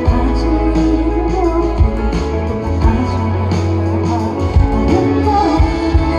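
Live pop music played loud over a festival PA: a woman singing over guitar, heavy bass and drum hits.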